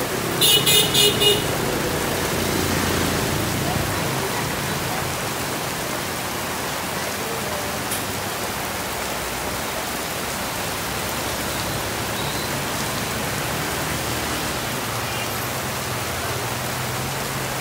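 Heavy rain pouring steadily on the street and awnings. A vehicle horn beeps four quick times about half a second in, and traffic passes through the wet street.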